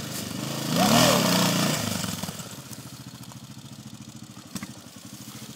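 Enduro dirt bike engine revving up and falling back about a second in, then running steadily at a low, quieter idle.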